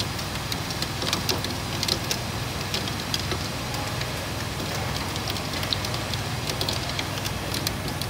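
Hurco VMX84i 50-taper CNC mill driving a 3-inch Allied revolution insert drill into 4140 steel under about 63% spindle load, with 300 psi through-spindle coolant spraying: a steady drone and hiss of cutting and coolant, broken by frequent irregular sharp ticks.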